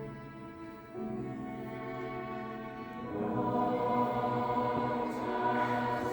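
Choral music with orchestral accompaniment: voices holding sustained chords, moving to a new chord about a second in and swelling louder about three seconds in.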